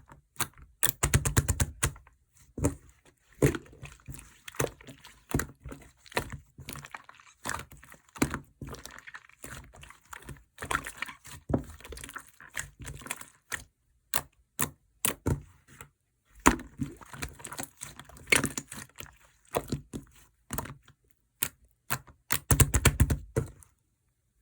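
Green slime being squeezed, poked and stretched by hand, giving irregular sticky clicks and air-bubble pops, with two quick runs of rapid crackling, one about a second in and one near the end.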